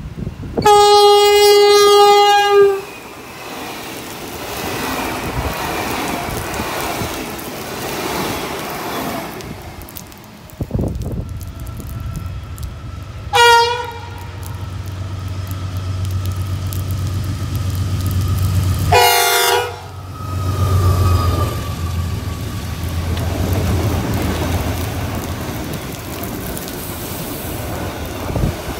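Freight train horn: one long blast of about two seconds near the start, a short toot about halfway through and another short blast a few seconds later. A low steady hum from the locomotive builds as it approaches and passes, followed by the rolling noise of the container wagons going by.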